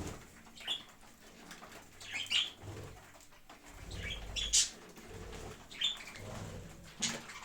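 Pet birds chirping: short high calls every second or so, with low rumbling movement noise in between.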